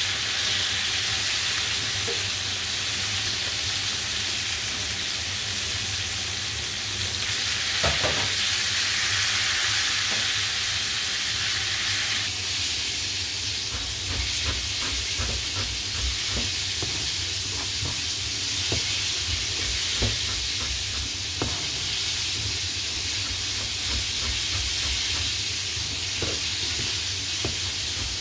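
Chicken pieces frying in a pan of hot oil, a steady sizzle with one sharp knock about eight seconds in. From about twelve seconds a knife slices lemon peel into thin strips on a cutting board: quick, uneven taps of the blade on the board over a hiss that carries on.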